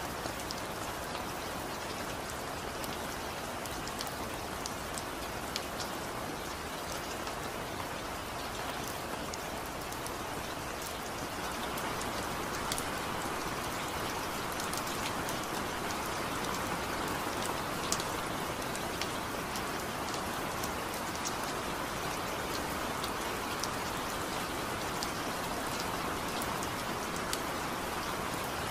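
Steady rain falling, an even hiss with individual raindrops ticking throughout; it grows slightly louder about a third of the way through.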